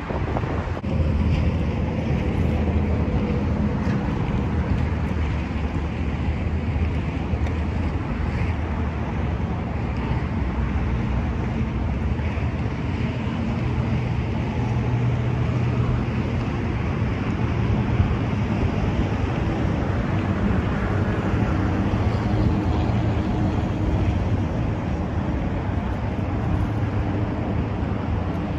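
Steady low rumble of road traffic mixed with wind noise on the microphone.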